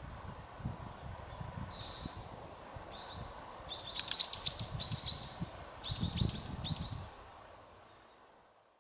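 A small bird calls with one short note about two seconds in, then quick runs of rising chirps through the middle, over a low, uneven rumbling noise. The sound fades out near the end.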